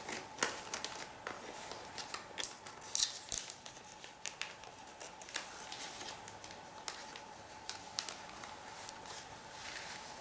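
Thin plastic comic book bag crinkling and rustling as comic books and a cardboard backing board are slid into it, with scattered sharp clicks and crackles of handling.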